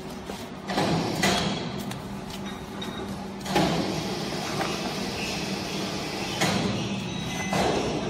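Cardboard boxes being pushed by hand into the chamber of a small vertical waste baler: several bursts of cardboard scraping and thudding against the machine, over a steady low hum.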